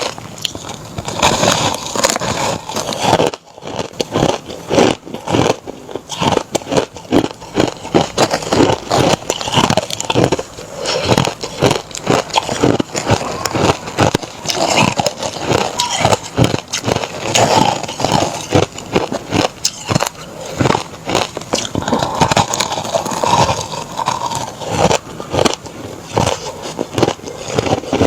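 A person biting and chewing crushed ice close to the microphone: a fast, continuous run of crunches with a short pause about three seconds in.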